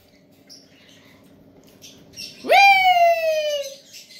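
Alexandrine parakeet giving one loud, drawn-out call about two and a half seconds in, rising sharply then sliding slowly down in pitch for about a second; a few faint small chirps come before it.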